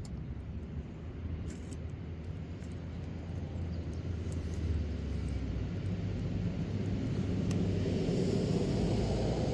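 A distant engine rumble that grows steadily louder, its sound filling out higher in pitch towards the end, as of an approaching aircraft or vehicle.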